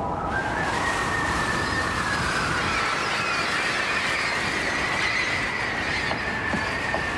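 Wind and sea noise at sea, a steady rushing, with a long high whistling tone over it that slides slowly up and then down.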